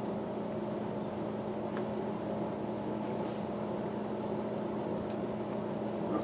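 Steady machine hum, like a fan or motor running, with a few faint light clicks.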